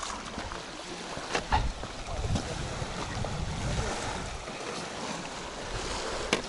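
Wind gusting on the microphone over lapping water, with a few sharp clicks.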